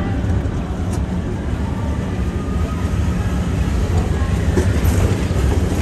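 Tomorrowland Transit Authority PeopleMover train running along its track, a steady low rumble.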